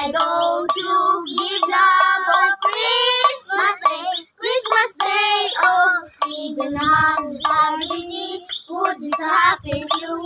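Several children singing a Christmas carol together, their high voices carrying a melody with short breaks between phrases.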